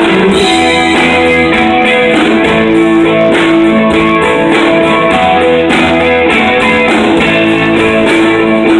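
Live country band playing an instrumental passage between sung lines, with strummed guitars to the fore over a bass line.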